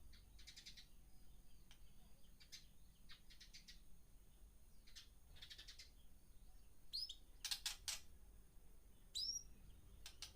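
Caged birds chirping faintly: short clusters of high chirps every second or two, with a few louder, sharper calls that sweep down in pitch in the second half.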